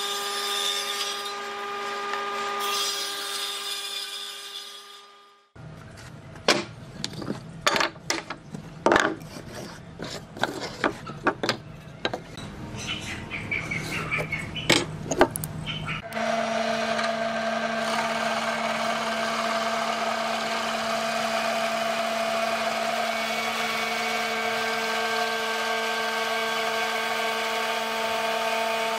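A table saw running, its steady whine dying away about five seconds in. Then sharp knocks and scratches as a steel square and pencil are laid on and drawn across a wood block. About sixteen seconds in, a drill press starts and runs steadily, boring into the block.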